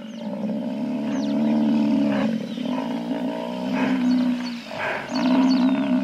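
African buffalo lowing: three long, low calls of about two seconds each, with short breaks between them. Small birds chirp faintly in the background.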